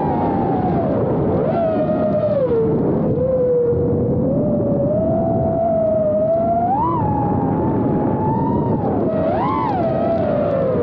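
FPV quadcopter's brushless motors and propellers whining, the pitch sliding down and up with the throttle and jumping in two quick surges near the end, over a steady rushing noise.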